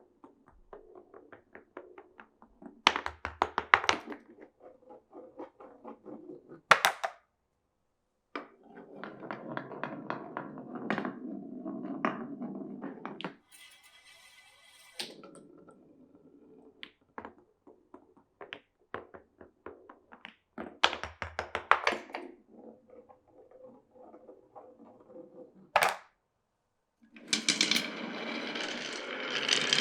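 Glass marbles running down a wooden marble run: stretches of rolling rumble broken by sharp clacks and knocks as the marbles drop onto and strike the wooden pieces. A brief high ringing patch comes about halfway through, and a steadier rolling sound starts near the end.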